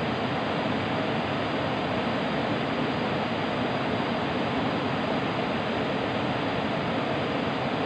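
Steady rush of a fast-flowing river running over rocky rapids, an even, unbroken hiss of water.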